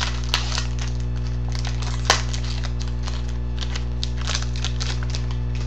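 Trading cards and foil pack wrappers being handled: crinkly rustling and sharp card clicks, with a louder snap about two seconds in, over a steady electrical hum.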